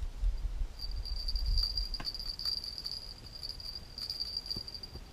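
An insect trilling on one steady high note, starting about a second in and stopping near the end, over a low rumble in the first couple of seconds.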